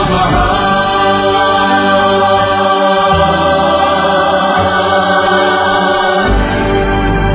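Choir singing a slow hymn in long held chords. The bass drops out about a second and a half in and returns near the end.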